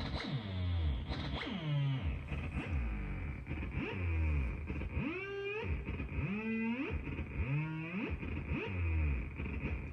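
Behringer Mavis analog synthesizer making sweeping, gliding tones with reverb: falling bass swoops repeat about once a second under a steady high whine, and from about five seconds in, wobbling tones swoop up and down for a few seconds.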